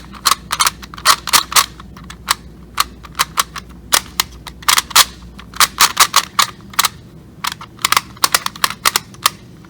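QiYi Rubik's Clock puzzle being turned by hand for its first turns: sharp, irregular clicks in quick runs as the dials snap from position to position.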